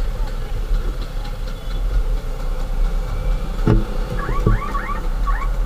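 Motorcycle on the move in traffic: a steady low engine and wind rumble, with one knock about 3.7 s in and a few short rising chirps near the end.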